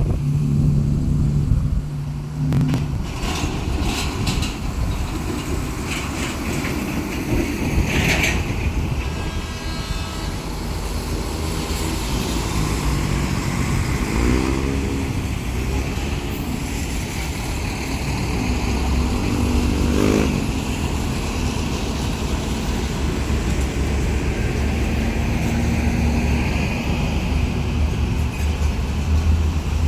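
Diesel engine of a heavy track maintenance railcar running steadily as it gets under way with its ballast wagons, with a few brief higher sounds over it.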